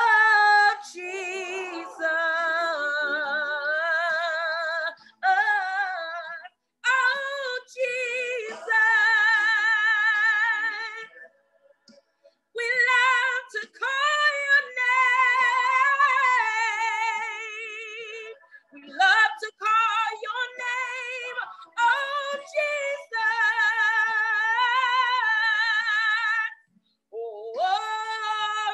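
A woman singing a gospel worship song solo and unaccompanied, holding long notes with a wide vibrato and sliding between them, with short breath pauses twice. The voice is heard over a video call.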